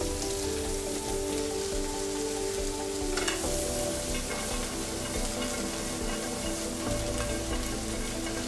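Chopped onions and cashews sizzling in hot oil in a large non-stick pan, stirred now and then with a brief scrape, about three seconds in.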